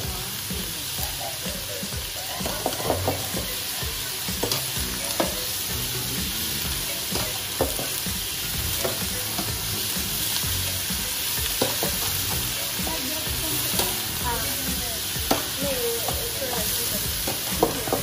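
Paneer cubes sizzling as they fry in oil in a metal kadhai, stirred with a metal ladle that clinks and scrapes against the pan again and again.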